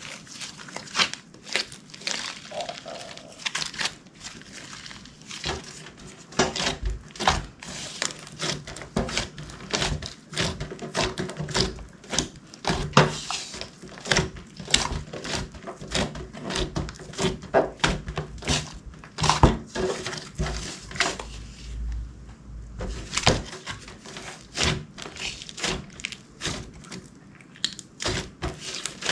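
Clear slime being squished and worked by hand, making a dense, irregular run of sticky pops and clicks.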